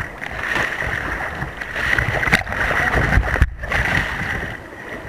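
Kayak paddle strokes and water splashing close to the boat, with a burst of spray thrown over the kayak about three to four seconds in.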